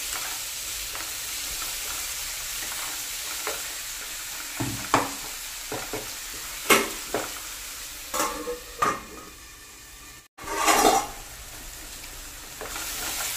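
Onion–tomato masala frying in oil in a nonstick kadai: a steady sizzle as it is stirred with a wooden spatula, which knocks and scrapes against the pan several times. The onions are well wilted, the stage at which crushed garlic, ginger and shallots go in for a chicken roast. The sound breaks off briefly near the end, then comes back with a short louder rustle before the sizzle settles quieter.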